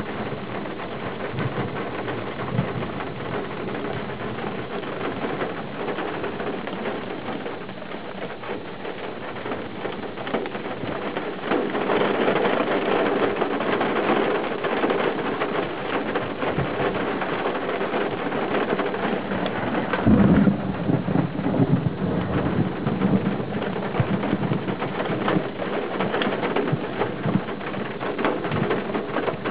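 Thunderstorm: steady heavy rain falling, with thunder rumbling. The rain gets louder about twelve seconds in, and a louder clap of thunder comes about two-thirds of the way through.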